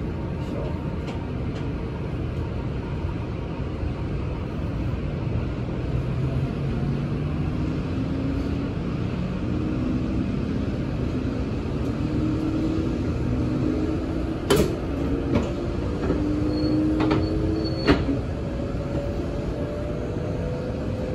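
Shinkansen pulling away and accelerating, heard from inside the car: a steady running rumble with a motor whine that climbs slowly in pitch as speed builds. A few sharp clicks come in the second half.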